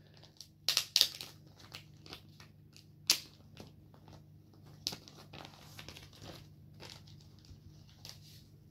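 Crinkling and rustling of a comic book being handled. There are a few sharp crinkles about a second in and again around three seconds in, then softer intermittent rustles.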